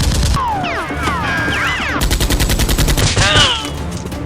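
Rapid automatic gunfire sound effect in two bursts, one at the start and another about two seconds in, with sliding, whistling tones in between.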